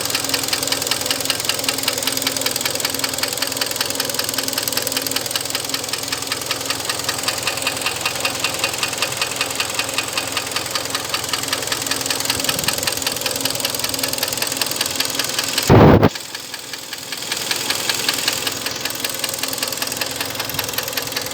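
Hyundai ix35's 2.0-litre G4KD petrol engine running with a fast, steady knock, the sign of scored (scuffed) cylinder walls. About sixteen seconds in there is a short loud thump, after which the engine sounds quieter and rises briefly once.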